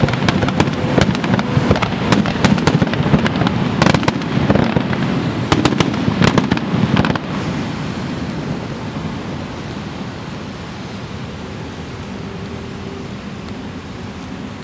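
Fireworks display: a dense run of rapid crackling pops and bangs from bursting shells that cuts off abruptly about halfway through. A steady, quieter rumble of noise remains.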